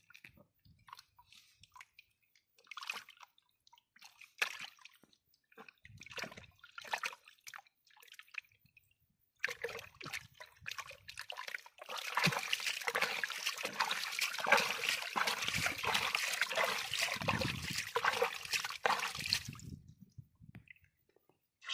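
Water splashing and sloshing: scattered light splashes at first, then about halfway through several seconds of dense, continuous splashing that stops shortly before the end.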